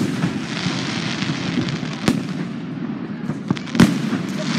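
Aerial fireworks bursting overhead: sharp bangs at the start, about two seconds in and again near the end.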